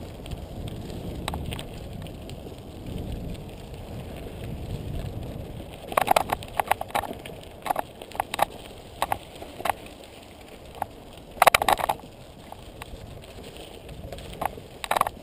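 Mountain bike riding over a rocky dirt trail: a steady low rumble of tires on gravel, then from about six seconds in, sharp rattling clatters as the bike jolts over rocks, loudest in bunches a few seconds apart.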